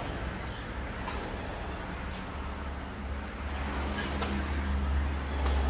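Eating-stall background: a low steady rumble, like a nearby vehicle engine, swelling in the second half. A few light clicks of chopsticks and spoons against bowls sound over it.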